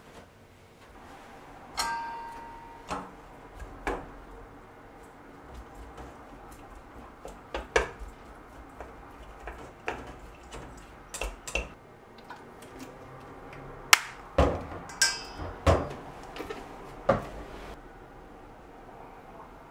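Chopsticks clinking and knocking against a stainless steel mixing bowl while tossing salted eggplant with herbs. One strike about two seconds in leaves the bowl ringing briefly. A quicker run of louder knocks comes near the end.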